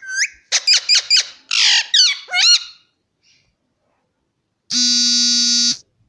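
Parakeets squawking in a nest box: a quick run of short, shrill calls that bend up and down in pitch over the first two and a half seconds. About a second before the end a flat, steady buzzing tone sounds for about a second and stops.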